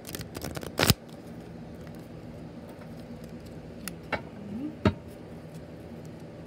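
Beads of a bracelet and handled objects clacking as a hand moves close past the microphone: a quick run of sharp clicks in the first second, then a few lighter taps about four to five seconds in, over a faint steady low hum.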